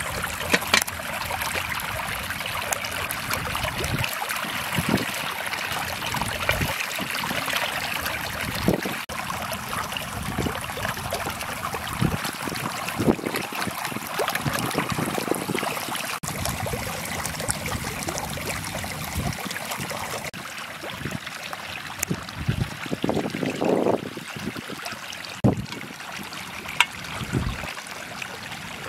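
Water running steadily through a small channel, with scattered splashes and light knocks as aluminium mess tins are dipped in, swirled and emptied.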